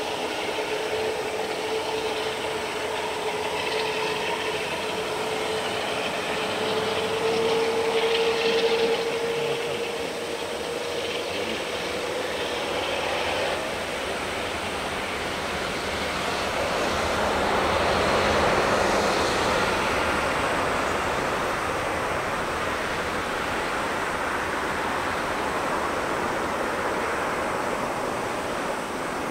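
Airbus A380's Rolls-Royce Trent 970 turbofan engines running at low thrust as the airliner taxis onto the runway: a steady whine that climbs slightly in pitch over the first ten seconds or so, over a constant rush of jet noise that swells around the middle.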